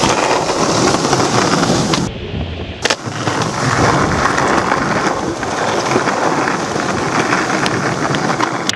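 Skateboard wheels rolling over rough concrete pavement: a loud, steady rumble, with one sharp knock about three seconds in.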